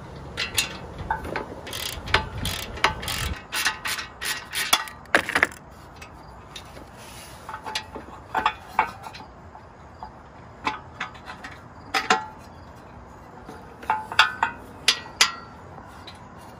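Socket ratchet clicking in short runs, with small metal clinks, as the 12 mm bolt holding the stock exhaust's rear bracket is backed out.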